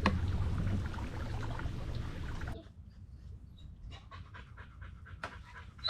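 A dog panting rapidly, several breaths a second. A boat motor is running at first and drops away about two and a half seconds in.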